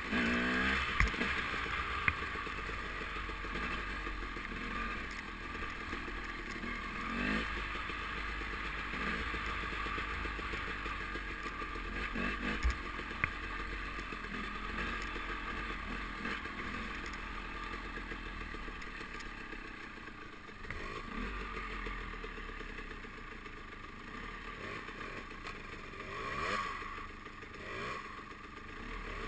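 Dirt bike engine running at trail speed, its pitch rising and falling with the throttle, with scattered clatter and knocks from the bike jolting over the rough trail.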